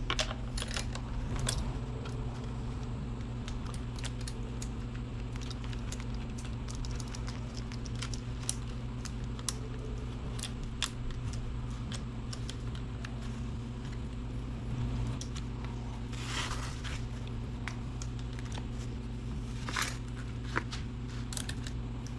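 Light metallic clicks and rattles of a chainsaw chain and guide bar being handled and fitted onto a Husqvarna 435, with two longer scraping rattles near the end, over a steady low hum.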